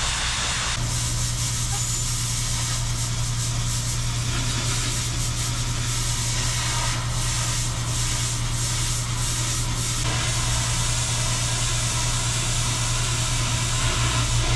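Engine-driven pressure washer running steadily, with the hiss of its water jet spraying over the hum. The engine note steadies about a second in, and the spray sound changes around ten seconds in.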